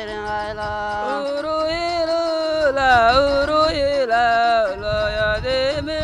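A man singing a folk melody in long held notes that waver and slide in pitch, accompanied by a plucked wooden lyre.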